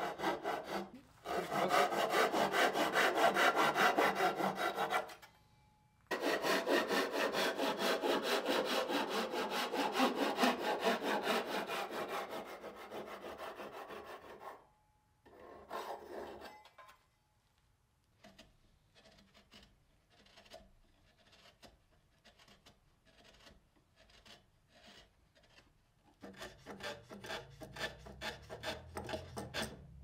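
Hand saw cutting through a hardwood stick with quick, even back-and-forth strokes, stopping briefly about one, five and fifteen seconds in. In the second half the strokes are lighter and spaced out.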